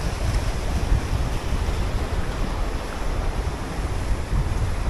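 Choppy sea waves washing around the wader, with wind buffeting the microphone in a steady low rumble.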